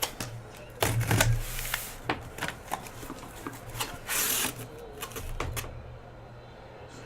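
A sealed trading-card hobby box being handled and opened by hand: a run of clicks, knocks and rustles of cardboard and wrapping, with a brief scratchy tearing or rubbing sound about four seconds in. A faint steady low hum runs underneath.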